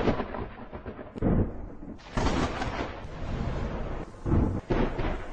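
Thunder sound effect: crashing, rumbling thunder with sharp crackles, hitting suddenly at the start and again several times, about a second or two apart.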